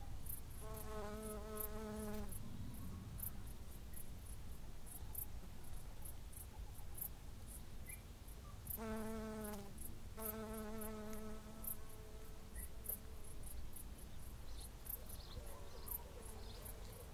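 Garden ambience: faint, very high chirps repeating about two or three times a second, like an insect chirping, over a low rumble of wind. A low hum with overtones comes in twice, for a second or two each time.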